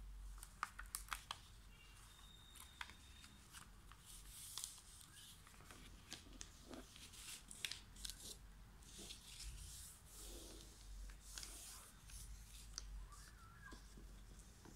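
Faint rustling and crackling of a square sheet of origami paper being folded by hand and its creases pressed, with a quick run of small clicks near the start.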